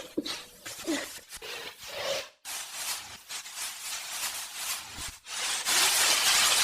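A person with a stuffy nose sniffling and rubbing at the nose, then a long, loud rush of air through the nose that starts about five and a half seconds in, like a hard nose-blow.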